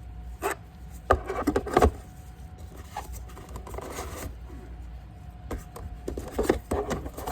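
Packaging being handled during an unboxing: rubbing and scraping in two bursts, about a second in and again near the end, over a steady low hum.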